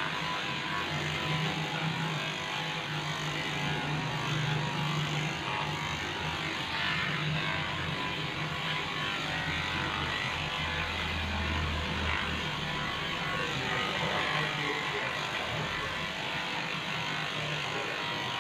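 Electric pet clipper running steadily, its blade shaving through a Lhasa Apso's matted coat, with a constant hum under a hiss of cutting.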